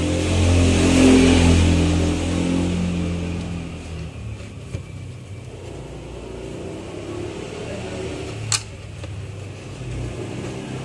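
A motor engine's low hum, loudest in the first couple of seconds and fading away over about four seconds, then a softer hum, with one sharp click near the end.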